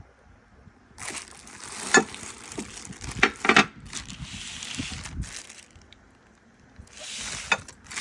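Plastic or paper packaging crinkling and rustling as it is handled, with a few sharp clicks. It pauses briefly and starts again near the end.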